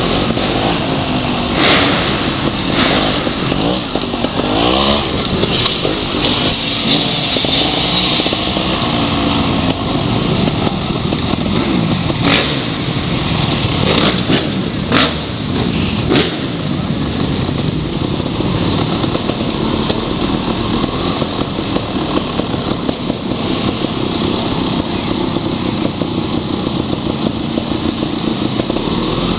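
Trials motorcycle engine, heard from the bike being ridden. It revs up and down through the course, with a few sharp knocks around the middle, then runs at a steadier low speed toward the end.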